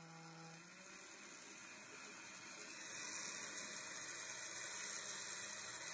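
Faint whir of a countertop blender puréeing mushrooms with water: a low motor hum at first, then a hissing, watery wash that grows a little louder about halfway through.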